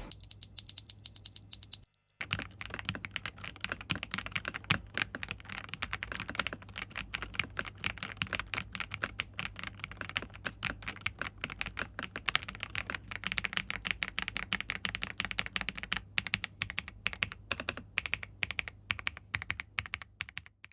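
Fast typing on a mechanical keyboard fitted with TTC Flaming Red V2 linear switches: a dense run of keystroke clacks, with a brief pause about two seconds in.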